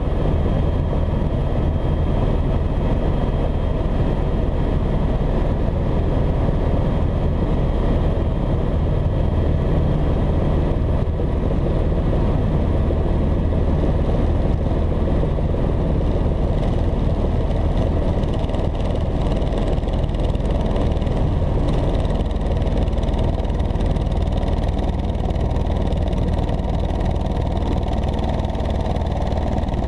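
Steady helicopter engine and rotor noise, with a thin high whine that fades about ten seconds in.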